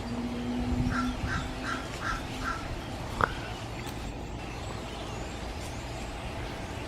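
A crow cawing five times in quick, even succession, heard over a low steady hum that fades out partway through; a single sharp click follows.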